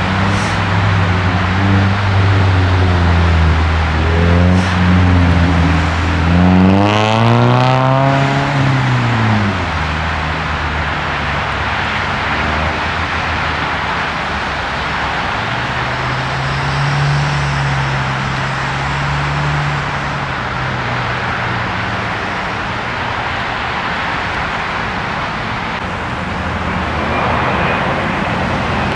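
Steady road-traffic noise from passing cars and engines. About seven seconds in, one vehicle's engine climbs in pitch and then drops away.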